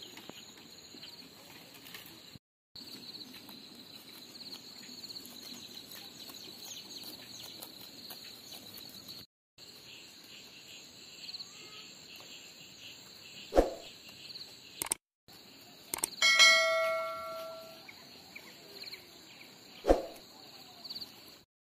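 A metal bell struck once, ringing with several clear tones for over a second and fading away, over a steady high-pitched drone. A sharp knock comes shortly before the bell and another shortly after it.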